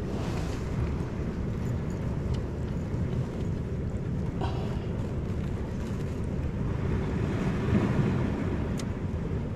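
Steady low wind rumble on the microphone outdoors, with a few faint clicks, the clearest about four and a half seconds in.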